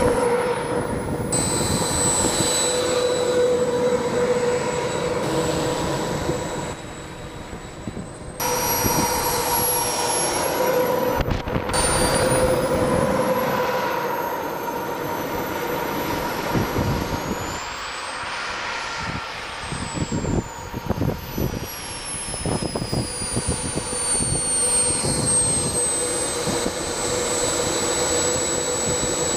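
The RC F-15 Eagle model's JetsMunt 200 turbine gives a high, thin whine while it taxis. The pitch rises and falls with the throttle, and several sudden breaks cut into it. Under it runs the steady hum of a quadcopter drone hovering.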